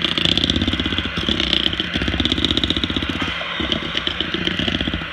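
Electric hand mixer running steadily, its twin wire beaters whirring through thick cake batter to work in flour, with a couple of brief dips in level.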